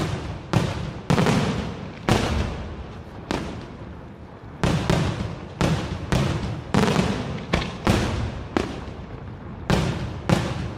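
Daytime fireworks: aerial shells bursting in a rapid series of loud bangs, about one to two a second, each trailing off in an echo, with a short pause in the middle.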